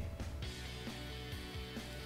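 Quiet instrumental background music, with held notes that change pitch step by step.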